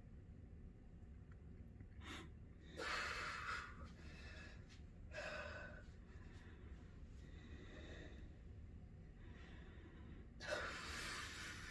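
A person's breathing as she holds physique poses: several forceful, breathy exhalations a few seconds apart, the strongest about three seconds in and near the end.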